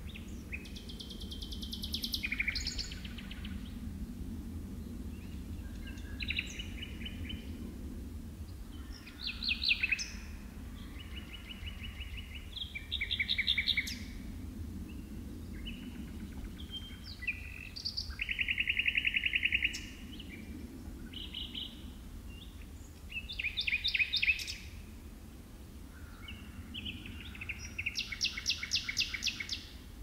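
Nightingale singing: separate phrases of a second or two, each a fast run of rapidly repeated notes, with short pauses between them. A steady low rumble sits underneath.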